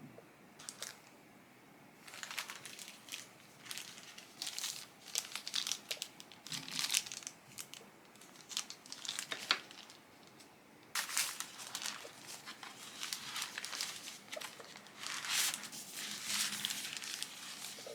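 Keyboard packaging being unwrapped: crinkling and crackling in irregular bursts, with some tearing, pausing briefly about halfway through.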